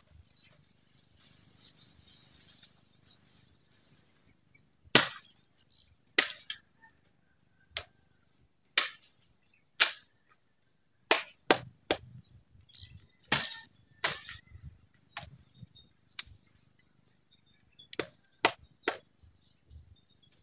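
Blade chopping into bamboo: about a dozen sharp, irregularly spaced blows starting about five seconds in.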